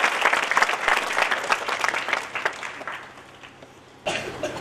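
Audience applauding, many hands clapping, fading out about three seconds in. Near the end the background noise jumps up suddenly.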